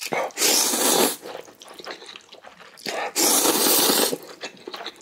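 A person loudly slurping spicy ramen, two long slurps about three seconds apart, with small wet mouth sounds between them.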